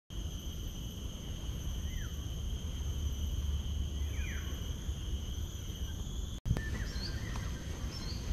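Garden ambience of a steady high insect drone at two pitches, with a few short falling bird chirps over a constant low rumble. It drops out for an instant a little over six seconds in, then carries on with higher, quicker bird chirps.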